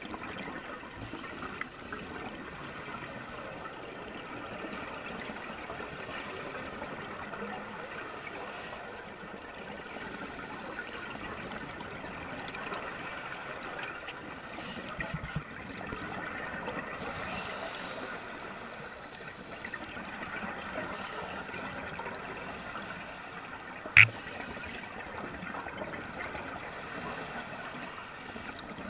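Scuba diver breathing through a regulator underwater, a little heavy: a hiss about every five seconds as each breath is drawn, with the bubbling and gurgling of exhaled air in between. A single sharp click about 24 seconds in.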